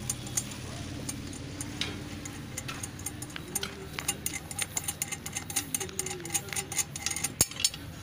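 Irregular small metallic clicks and taps as hands work the cover plate of a centrifuge bitumen extraction machine's bowl loose; they grow busier about halfway through, with one sharp clink near the end. A steady low hum runs underneath.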